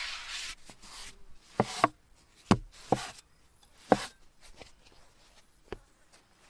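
Chopping on a cutting board: about six sharp, unevenly spaced knocks of a blade striking the board, with a short hiss at the very start.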